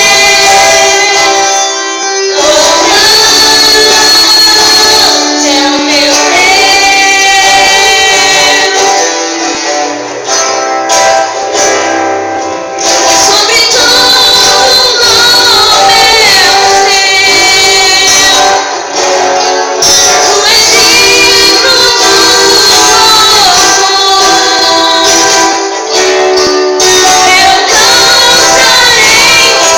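Loud band music with a singer, voice and instruments playing continuously, with a few brief dips in level.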